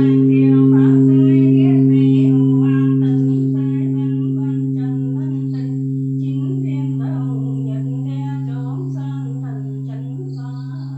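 Large Buddhist pagoda bell's deep hum ringing on and slowly fading after a strike, with a voice chanting over it.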